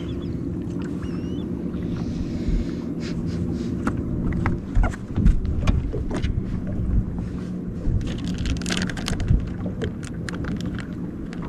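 Steady low hum of a fishing boat's motor, with water splashing and short knocks against the boat, more of them after about five seconds.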